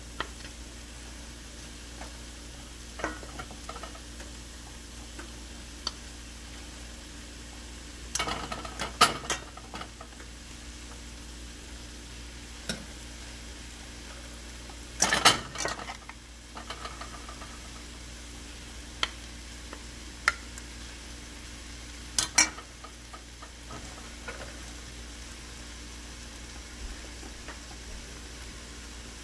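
Vegetables sizzling gently in a stainless steel frying pan as shredded cabbage is added and stirred with a wooden spoon. Scattered knocks and scrapes of the spoon on the pan break in, loudest in short clusters about a third of the way in and about halfway.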